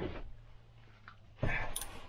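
Socket wrench working a bolt on a vintage snowmobile engine: metal clicking and scraping, with a short scrape at the start and a louder rattling burst about a second and a half in.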